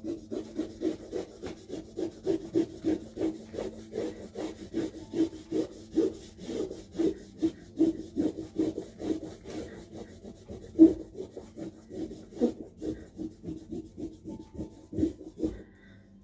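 Rubber eraser rubbing back and forth over fine-grain watercolour paper taped to a board, about three strokes a second, lightening the pencil lines before painting. One louder knock comes about two-thirds of the way through, and the rubbing stops near the end.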